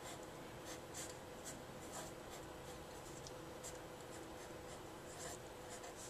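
Marker pen drawing on a white surface: faint, short scratchy strokes at irregular intervals.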